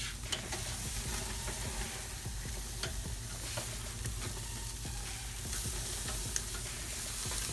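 Steak sizzling: a steady frying hiss with scattered pops and crackles.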